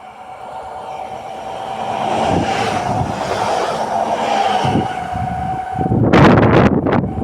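A train approaching and running past, getting steadily louder, with a steady whine under the rolling noise. A loud burst of rushing, clattering noise comes about six seconds in.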